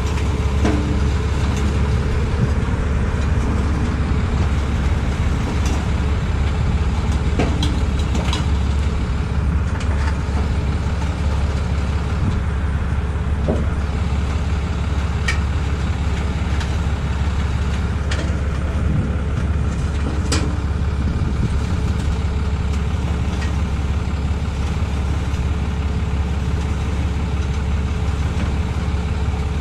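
A truck engine idling steadily, with a few short light clicks and taps over it.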